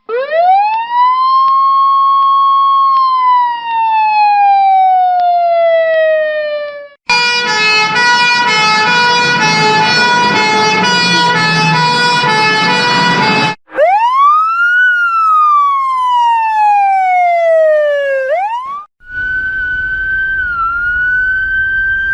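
Four ambulance siren patterns in turn. First a wail that rises, holds and slowly falls. Then a fast run of rapidly alternating tones, then another rise with a long falling sweep that turns sharply up at the end, and last a nearly steady high tone with a brief dip, over a low rumble.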